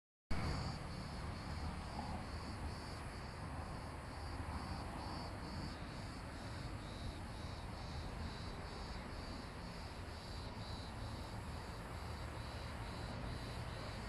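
An insect singing in even, high-pitched pulses, about two and a half a second, over a steady low rumble.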